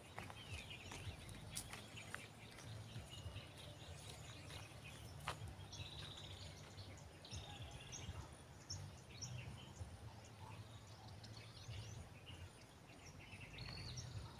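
Faint outdoor ambience of small birds chirping and trilling in short repeated calls, over a steady low rumble, with a few sharp clicks.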